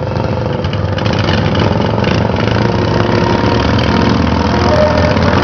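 Racing riding lawn mower engines running together in a steady, dense drone that gets a little louder over the first second.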